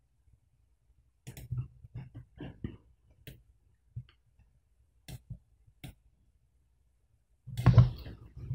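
Computer mouse clicking, a few separate clicks, as bone points are placed in the animation software. Near the end comes a louder short noise, stronger in the low end, which is the loudest thing here.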